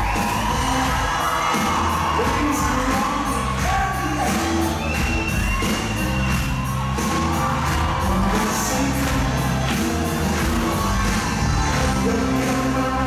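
Pop music with singing and a steady beat from a stage performance, with some whoops from the crowd.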